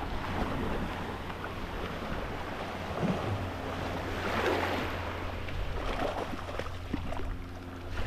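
Small surf washing over a sandy shoreline, with wind rumbling on the microphone; a wash swells louder about halfway through.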